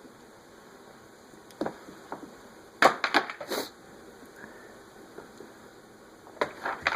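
Toys knocking and clattering as they are moved about in a toy box: scattered sharp knocks, with a quick cluster of them about three seconds in and two more near the end.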